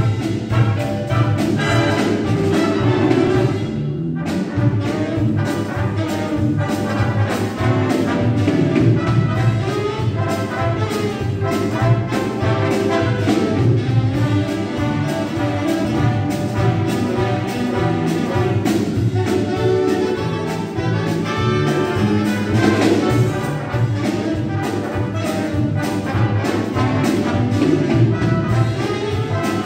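Brass band of trumpets and trombones playing a lively Dixie-style jazz number over a steady beat, starting abruptly.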